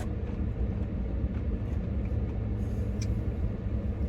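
Steady low rumble like a running vehicle engine or nearby traffic, with a couple of faint clicks.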